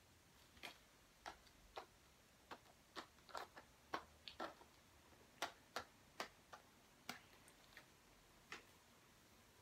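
Faint, irregular clicks and light taps, a couple a second at their busiest, unevenly spaced and stopping and starting.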